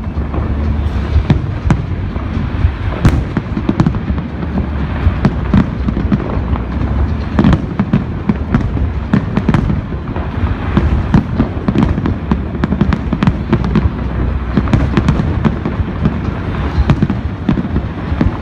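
Fireworks display going off continuously: a dense run of sharp bangs and crackles over a constant heavy low rumble of shell bursts.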